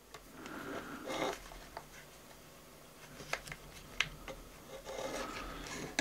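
Faint handling noise of hands moving the hairdryer's internal wires and multimeter test leads, with a few light clicks of the probe tips against the wiring in the middle.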